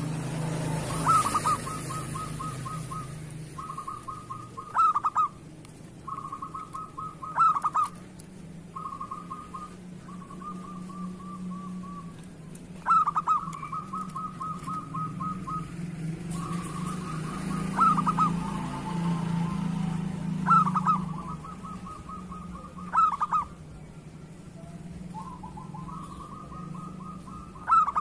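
Local zebra dove (perkutut) cooing: long runs of quick rattling notes, each run punctuated by a louder accented note about every three to five seconds. A steady low hum runs underneath.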